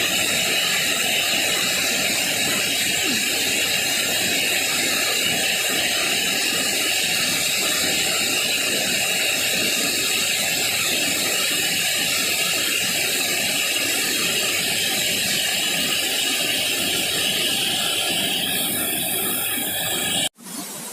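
Waterfall rushing: a steady, loud noise of falling water that cuts off suddenly near the end.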